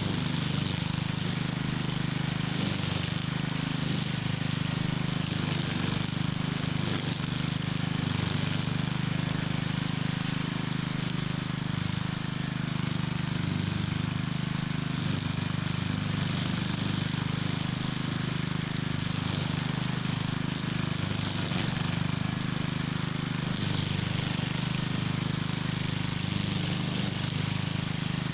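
Cub Cadet walk-behind string trimmer's engine running steadily at full throttle while cutting weeds, with a hiss from the spinning line that swells and fades every few seconds.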